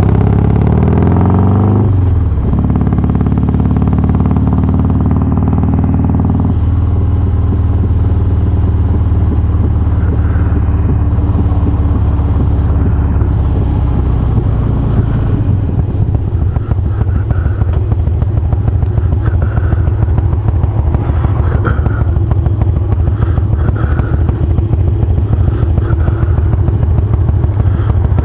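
Harley-Davidson Twin Cam 88 V-twin with Feuling 525 cams and hydraulic cam chain tensioners running loud. Its pitch drops in the first couple of seconds, then holds steady, shifting to a new level a few times.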